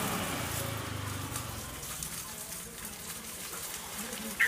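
Plastic bubble wrap rustling and crackling as it is handled around a new fishing rod, with a brief high squeak near the end.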